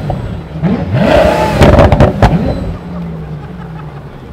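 Pagani Huayra's twin-turbo V12 blipped, the revs rising and falling with a few sharp cracks about two seconds in, then settling to a steady low idle.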